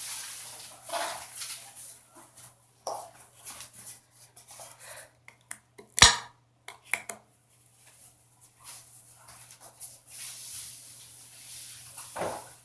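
Containers and utensils being handled while slime ingredients are added: scattered light clicks and knocks, with one sharp, loud knock about halfway through.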